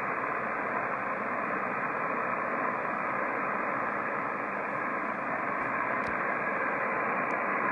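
Kenwood TS-570SG transceiver on 27.385 MHz lower sideband putting out steady receiver hiss (band noise) through its speaker, with no station transmitting. The hiss sounds muffled and narrow, the radio's sideband filter trimming off the top.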